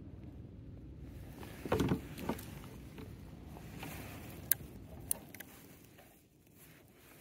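Knocks and water noise around a fishing kayak: a louder knock or splash about two seconds in, then two sharp clicks a little past the middle, over a low steady rumble.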